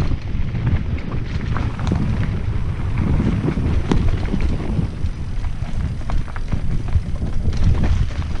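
Mountain bike descending a dry dirt trail at speed: wind buffeting the action camera's microphone, over tyres rolling on dirt and frequent short knocks and rattles from the bike over bumps.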